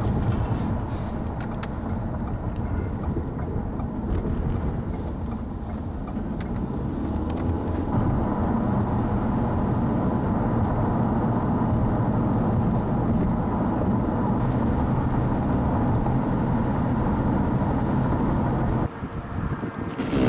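Steady engine and tyre noise heard from inside a car driving on a snowy highway. About eight seconds in it changes to a steadier, slightly louder drone. Near the end it drops suddenly to quieter wind noise.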